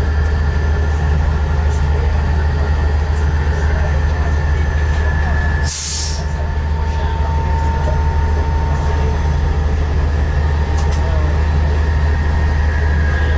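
SNCF X 2200-series diesel railcar running steadily, its engine giving a loud low hum with two held higher tones. A short hiss comes about six seconds in.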